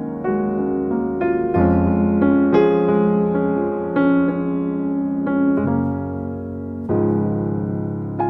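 Background piano music: a soft keyboard melody with struck notes and chord changes every second or so.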